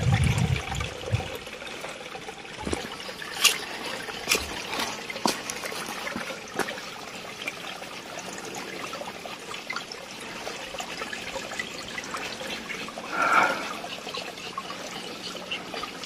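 Shallow water trickling steadily over stones and leaf litter, with a few sharp clicks in the first half.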